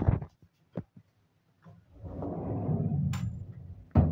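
Phone knocked and rubbed while being carried: a few sharp knocks on the microphone, then about two seconds of low rumbling handling noise with a click in the middle, and another knock near the end.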